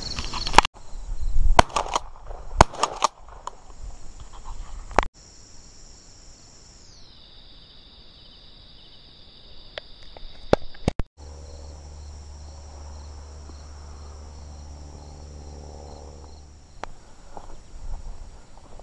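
Steady high-pitched buzzing chorus of crickets and other field insects, broken off and resumed several times, with a run of sharp, loud bangs in the first five seconds. A low steady hum runs under the insects for a few seconds past the middle.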